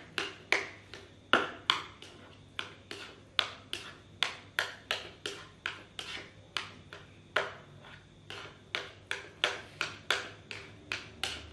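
Chopsticks beating raw egg into rice in a ceramic bowl, clinking against the bowl's side about three times a second with short ringing clicks.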